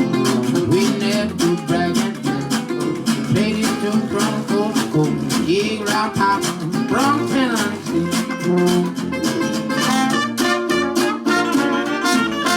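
Traditional New Orleans-style jazz band playing a number, with a stepping tuba bass line under strummed guitar and gliding melody lines.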